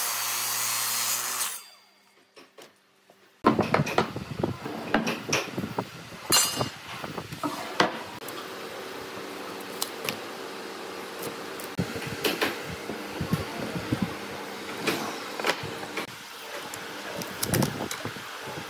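Electric miter saw running and cutting through a block of old boat timber, stopping about a second and a half in. After a short quiet gap come many light clicks and knocks as metal squares and a pen are handled against the wood, over a steady faint hum.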